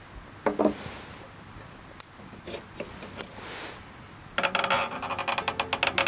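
Metal hurricane oil lantern handled as it is lit: a sharp knock about half a second in, faint scrapes and a brief hiss, then a quick rattle of metal clicks over the last second and a half.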